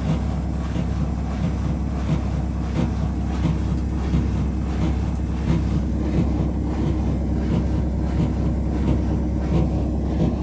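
Whirlpool 5 kg front-loading washing machine in its spin cycle: the drum runs with a loud, steady rumble and a regular beat several times a second, the sign of an unbalanced load.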